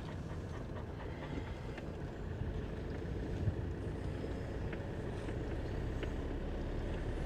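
Motorhome engine and road noise heard from inside the cab as it drives off slowly: a steady low rumble that grows a little louder, with a few light ticks and one short knock about halfway through.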